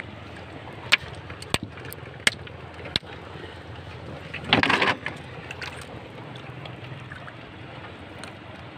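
Sharp knocks of a hand-held stone striking shell to break out fishing bait, four of them in the first three seconds, over steady water lapping against a small boat. About halfway through there is a short, louder rush of noise.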